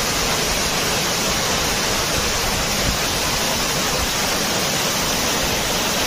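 Waterfall's falling water rushing loudly and steadily close to the microphone, with an uneven low rumble underneath.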